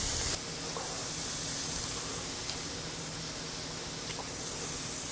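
Pieces of Korean beef sizzling on a small tabletop grill: a steady, soft hiss, with a couple of faint ticks.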